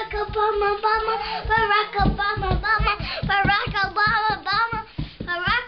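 A young girl singing a made-up song in quick, bouncing notes, with dull low thumps under the singing.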